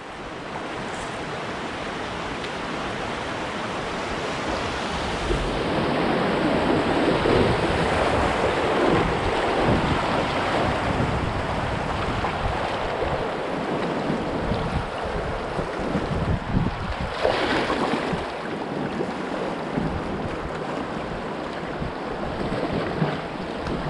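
Rushing water of a shallow river riffle as a kayak runs through it. It is a steady wash of noise that swells a few seconds in, with occasional splashes from paddle strokes.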